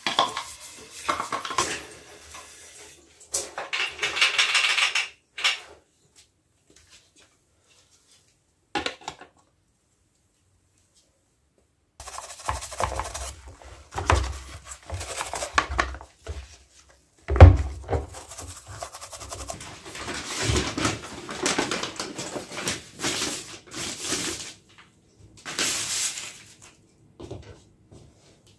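Plastic vacuum-cleaner parts, the dust container, its lid and a perforated filter cage, being scrubbed with a brush and knocked together while washed, first under a running tap and then in a basin of soapy water. The sound stops for several seconds about a quarter of the way in, and there is one loud knock about two-thirds of the way through.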